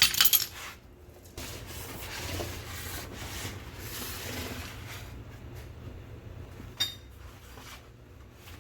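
Hand tools clanking against metal right at the start, then a few seconds of rubbing and scraping, and one sharp click about two-thirds of the way in.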